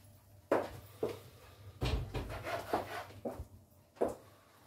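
A few separate knocks and bumps of household handling in a small kitchen. The sharpest comes about half a second in and another near the end, with a busier patch of clatter in between.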